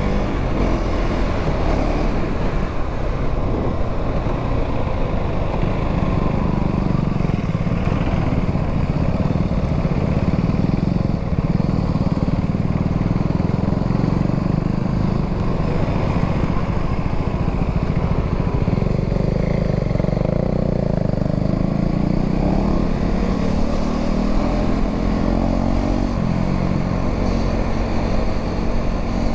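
2025 KTM Duke 390's single-cylinder engine running as the bike is ridden, holding a fairly steady note through the middle and rising in pitch near the end as it accelerates.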